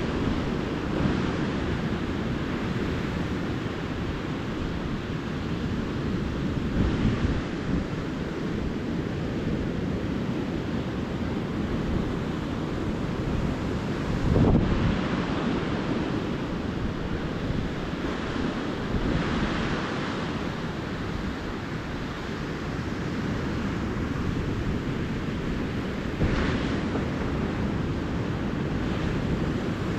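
Small ocean waves breaking and washing up a sandy beach in a steady surf. A louder break comes every several seconds, the loudest about halfway through.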